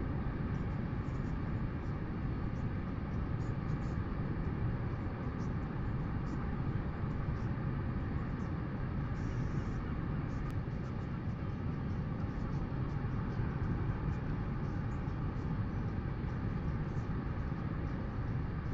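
Steady wind noise on an open-air nest-camera microphone: an even, low rumbling hiss with no distinct events.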